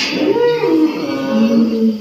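A cow mooing: a drawn-out call that slides up in pitch, then holds a low steady tone through the second half.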